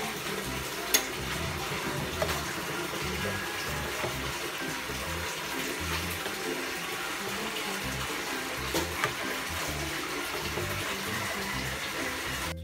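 Sugar syrup for caramel boiling hard in an enamel pot: a steady bubbling hiss with a few sharp crackles, about a second in and again near nine seconds. The syrup has overcooked and burnt.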